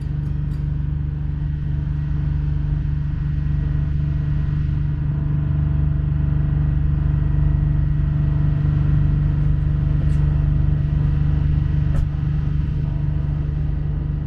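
A motor running steadily: an even, low engine drone with an unchanging hum.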